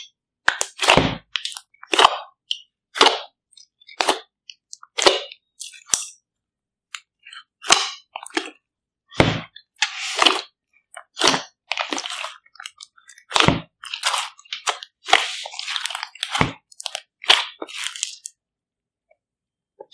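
Hands kneading and squeezing a large mass of slime in a plastic tub: short wet squelches and crackly pops, about one a second, with silence between.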